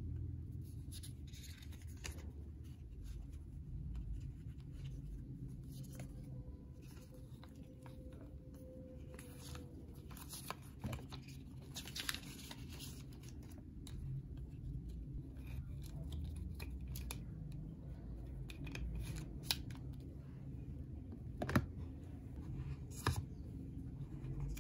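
Paper inserts and a small instruction booklet being handled and leafed through in a cardboard box, soft paper rustling with scattered light clicks and taps, a couple of sharper ones near the end. A low steady hum runs underneath.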